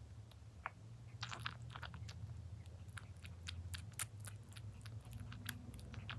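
Young kitten suckling milk from a feeding bottle's teat: quick, irregular wet clicks and smacks of its mouth and tongue, over a low steady hum.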